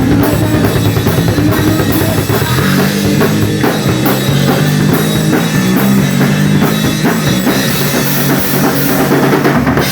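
Rock and roll band playing: a drum kit keeping a driving beat under electric instruments, with a stepping bass line coming in strongly a couple of seconds in.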